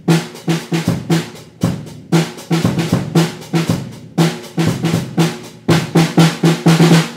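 Intro music built on a drum kit: a driving beat of snare and bass drum hits, the strikes coming faster and closer together near the end.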